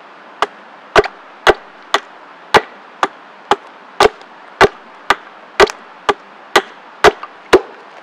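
Hatchet chopping at the lower end of a wooden pole held upright against the ground: about fifteen even blows, roughly two a second.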